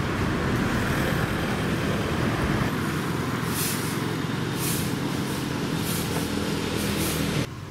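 Street traffic: a motor vehicle engine running steadily, with several short hissing sounds in the second half.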